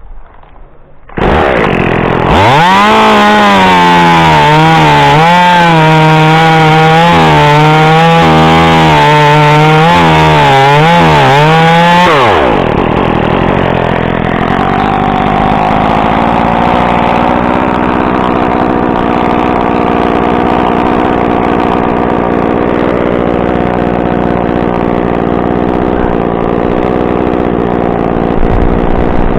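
Echo CS-2511T top-handle two-stroke chainsaw coming in about a second in and running at full throttle for about ten seconds, its pitch dipping and recovering as it cuts wood. It then drops back to a steady idle.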